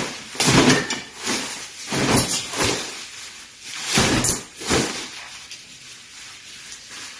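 A cloth being flapped and shaken through the air, making several loud swishes and whooshes in the first five seconds, then quieter rustling.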